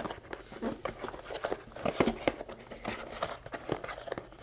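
Paperboard product box being opened by hand: irregular soft scrapes, rustles and small clicks as the end flap is pulled open and the inner tray is slid out.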